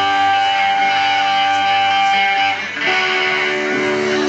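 Electric guitar played live through an amplifier, letting long chords ring, with a change of chord a little under three seconds in.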